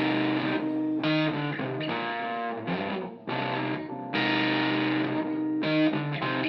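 Background music: distorted electric guitar playing chords with effects.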